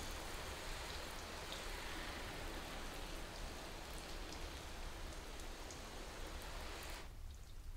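Water spraying from a garden hose pistol nozzle onto a freshly waxed car hood, a steady hiss and spatter of water on the paint. The spray cuts off suddenly near the end.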